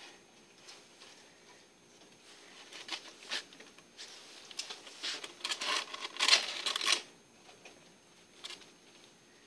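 Pet rats scrabbling about a wire cage with wood-shaving bedding: scattered scratches and rustles, with a louder run of scratching about five to seven seconds in.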